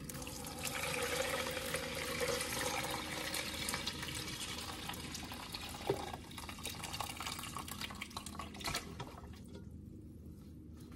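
Purple cabbage water poured from a pot through a strainer into a mixing bowl: a steady pour for the first few seconds that thins to a trickle and drips, then stops near the end. One light knock about six seconds in.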